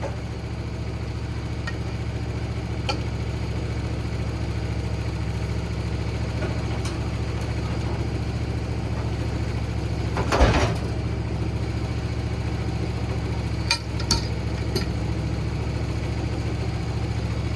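Wood-Mizer sawmill engine idling steadily, with a single heavy thud a little over ten seconds in and a couple of sharp knocks about four seconds later as the log is turned on the mill.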